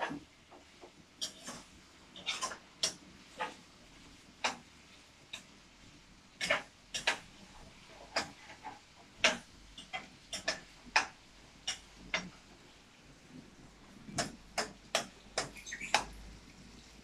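Caged lovebirds giving brief, sharp chirps at irregular intervals, a couple of dozen in all.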